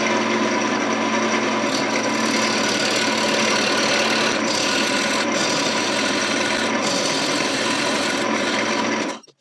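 Wood lathe running while a turning tool scrapes and cuts into a spinning mulberry blank, shaping a tenon: a steady motor hum under a continuous rasping cut. It stops abruptly near the end.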